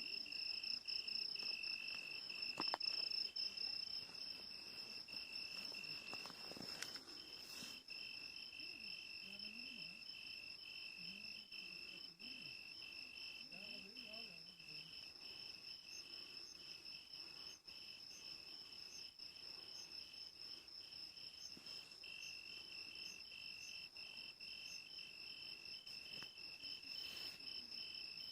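Crickets trilling steadily in a continuous high-pitched chorus, the lower note pulsing finely.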